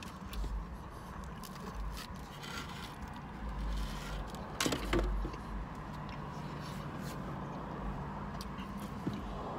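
Steady low hum of a car cabin, with low rumbles from passing traffic. There are a few small clicks and mouth sounds of someone eating, the most distinct about halfway through.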